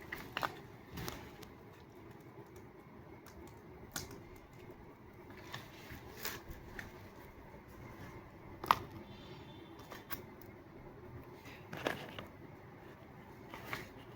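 Scattered light clicks and taps from handling paper and paper-craft pieces, at irregular intervals, with one sharper click a little past the middle.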